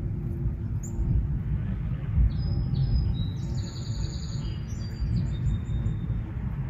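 Small birds chirping in a quick series of short, high calls and trills from about two and a half to five and a half seconds in, over a continuous low rumble that is the loudest sound throughout.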